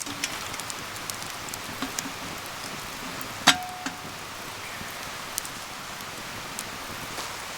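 Open wood fire crackling over a steady hiss, with scattered pops. About halfway through comes one sharp metallic clink that rings briefly.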